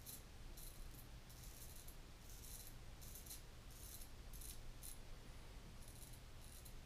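A small Portland Razor Sprite straight razor scraping stubble through shaving lather in a series of short, quiet strokes. The scratching is high-pitched, which comes from the short blade.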